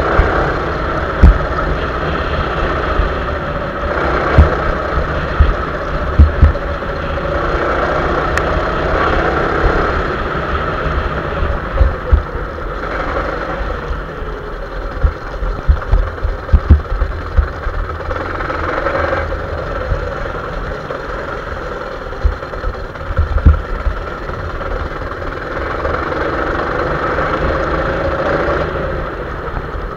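Trike ridden fast over rough grass: a continuous rushing running noise that swells and fades, broken by irregular low thumps and jolts as the wheels hit bumps.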